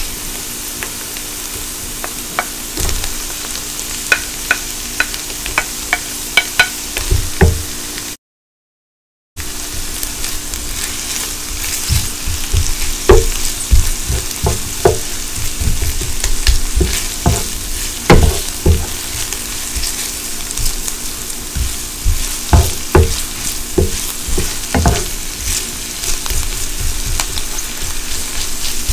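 Diced onions and sliced salami sizzling in a nonstick frying pan, with a wooden spoon knocking and scraping against the pan as they are stirred. A faint steady low hum runs underneath, and the sound cuts out completely for about a second around 8 s in.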